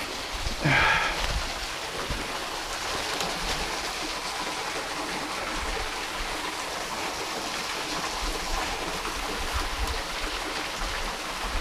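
Steady rushing of running water from a stream swollen by recent rain. About a second in there is one brief sound that falls in pitch, louder than the rest.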